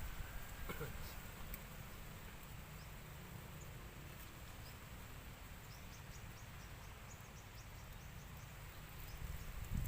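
Quiet outdoor ambience: a steady low rumble, with a short run of faint, quick high-pitched chirps about halfway through.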